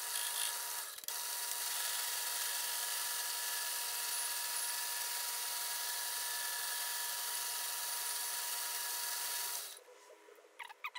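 Metal lathe taking a facing cut across an aluminium workpiece with an insert-tipped tool: a steady cutting hiss with a steady whine, settling in about a second in and stopping shortly before the end, followed by a few light clicks.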